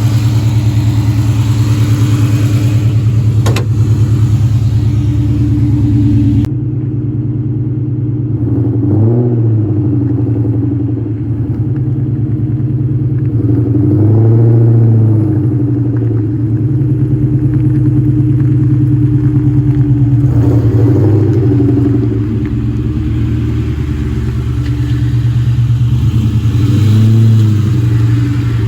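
2003 Mustang SVT Cobra's supercharged 4.6-litre V8 idling steadily, with four short revs that rise and fall back to idle. About six seconds in, the sound turns duller.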